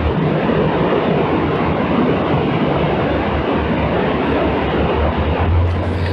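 Steady rushing wind noise buffeting the camera microphone, with an uneven low rumble underneath.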